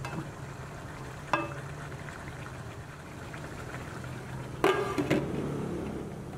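Chicken pieces simmering and sizzling in their juices in a stainless steel pan, over a steady low hum. A spatula taps the pan once about a second in, and near the end a glass lid is set down on the pan with two ringing clanks.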